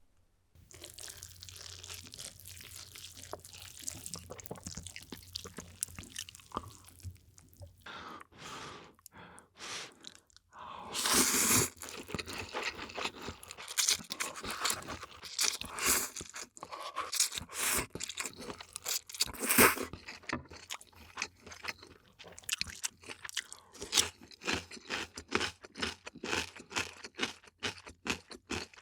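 Close-miked eating sounds: crunchy bites and chewing, with many short sharp crunches in quick succession through the second half and a louder, longer rush of noise about eleven seconds in.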